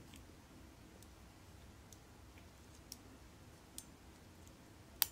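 Small, sparse clicks from a vintage watch movement being handled in a plastic movement holder, with fingers working its setting stem: four faint clicks about a second apart, then a sharper one near the end.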